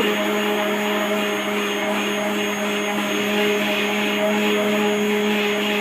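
Electric hand blender running steadily in a pot of milk cream and water, a constant motor whir with a low hum, churning the cream into butter.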